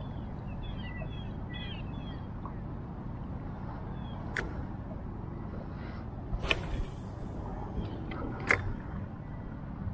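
Steady low rumble of wind on the microphone over light chop, with small birds chirping in the first couple of seconds. A few sharp knocks come in the second half; the loudest two are about two seconds apart.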